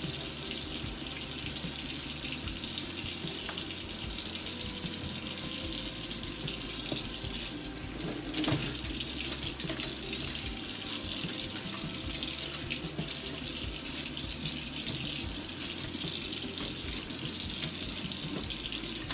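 Kitchen sink tap running steadily, water splashing into the sink, with a brief dip in the flow about eight seconds in.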